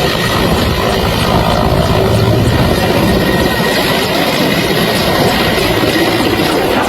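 Helicopter running close by, a loud, steady rotor and engine noise.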